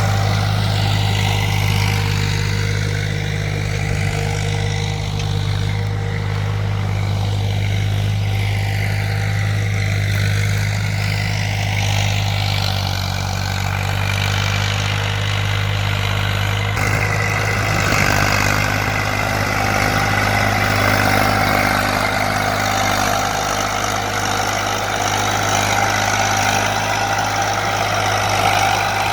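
Tractor engine running steadily while ploughing, a constant low engine note whose sound shifts slightly a little past halfway.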